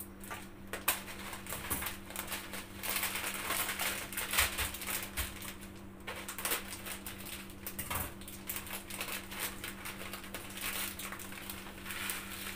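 Crinkling and rustling of a plastic packet of vermicelli noodles being cut open with scissors and handled, with small irregular crackles throughout. A steady low hum runs underneath.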